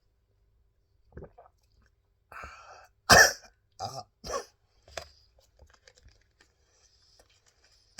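A man clears his throat, then coughs hard once and three times more, each cough smaller, as the naga chilli hot sauce he is tasting catches his throat.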